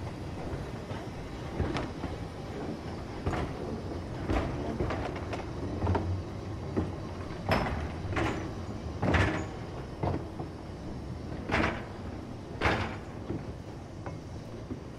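Narrow-gauge goods wagons and vans of a heritage slate train rolling slowly past, wheels and couplings clanking irregularly over the rail joints over a steady low rumble. The loudest clanks come about halfway through and again two-thirds of the way in.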